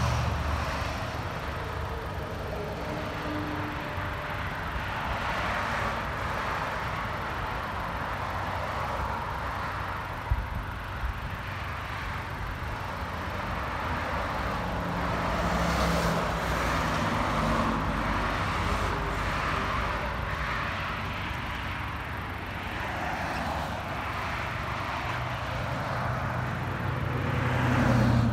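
Honda Civic 1.5-litre turbocharged four-cylinder idling steadily through a muffler-deleted dual exhaust, with road traffic passing behind it that swells about halfway through and again near the end. A brief sharp knock about ten seconds in.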